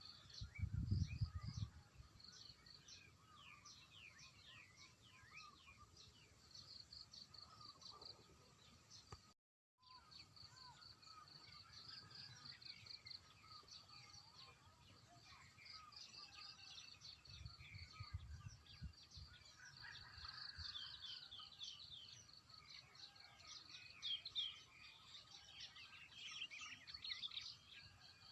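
Faint outdoor ambience of small birds chirping and twittering throughout. Low rumbles on the microphone come about a second in and again about two-thirds of the way through, and the sound cuts out completely for a moment about a third of the way in.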